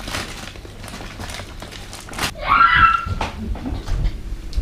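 Domestic cat meowing once, a short call of under a second about two and a half seconds in, with a few low knocks of food being handled at an open fridge.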